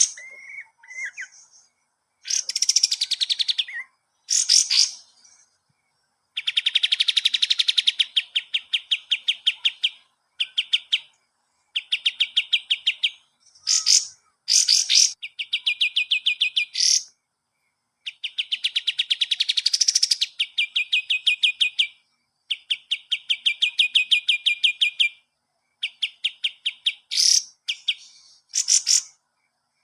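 Kapas tembak songbird singing. Fast trills of rapidly repeated notes, each run lasting one to four seconds, broken by short gaps and by brief sharp higher notes.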